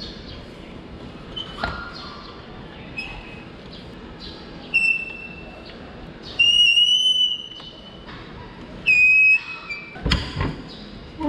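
Yamaha Aerox scooter's rear drum brake squealing as the scooter is rolled by hand and braked: three high-pitched squeals, the middle one about a second and a half long, with a couple of knocks near the end. The owner takes the noise for dirty brake shoes, which he thinks are also making the brake weak.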